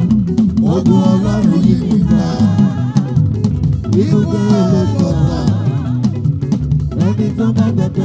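Live Yoruba gospel praise band playing: a drum kit with bass drum and snare over a steady bass line, with phrases sung over the top.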